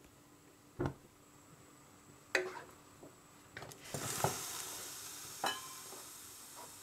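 Wooden spatula stirring minced meat, tomato puree and water in a nonstick frying pan, with a few knocks against the pan. About four seconds in a sizzle starts and slowly fades.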